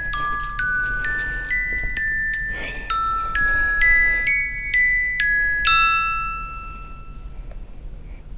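Phone ringtone: a melody of struck, bell-like glockenspiel notes, about two a second. The notes stop about six seconds in and ring away.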